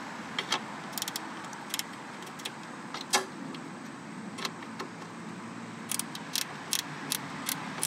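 Ratcheting combination wrench clicking as it tightens a nut down on a wire's ring terminal: sharp, scattered clicks, a few in the first three seconds and a quicker run of them from about six seconds in.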